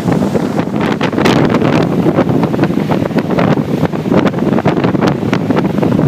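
Easterly gale buffeting the microphone, loud and continuous, over high-tide storm waves breaking and surging across a flooded seafront road, with frequent sharp splashes and gusts.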